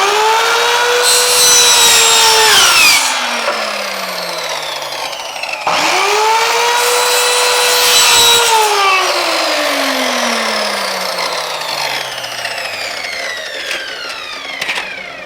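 Small high-speed power cutting tool with a blade, cutting into a plastic keyboard case. It spins up twice to a steady high whine, running a few seconds each time, and after each run winds down with a long falling whine.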